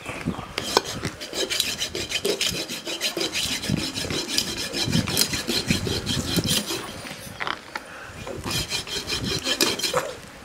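A knife scraping scales off a large fish in quick, repeated strokes, with a short pause about two-thirds of the way through before the scraping resumes.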